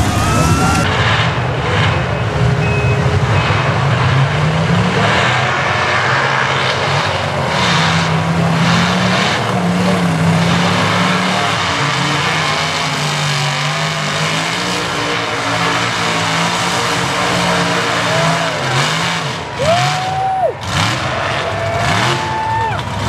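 Mud-bog trucks' big engines revving hard, the pitch climbing and falling again and again, as the trucks churn through deep mud.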